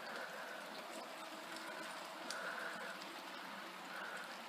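Heavy rain pouring down: a steady, even hiss with a few scattered drop ticks.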